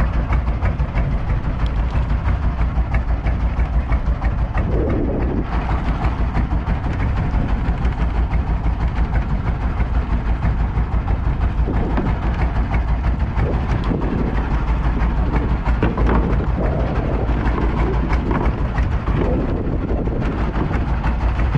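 Fishing boat's engine running steadily: a loud low rumble with a rapid, even throb, with short fainter sounds over it now and then.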